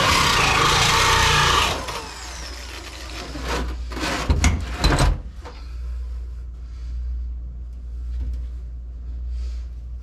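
A power drill running at speed, cutting off suddenly under two seconds in. A few sharp knocks and clatter follow, then a low steady hum.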